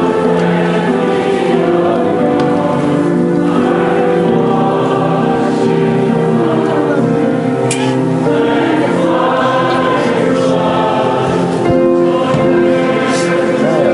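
Choir singing a slow hymn in sustained, held chords.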